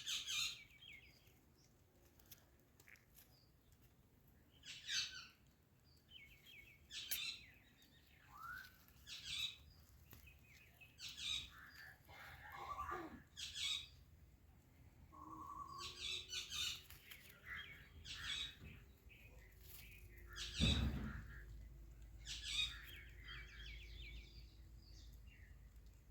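Ringneck parrot chirping: short, high calls every second or two. About three-quarters through there is a louder call together with a low thump.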